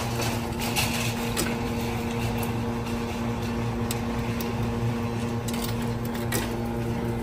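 Steady low electrical hum from a water refill vending machine, with a few sharp metallic clicks as coins are fed into its coin slot.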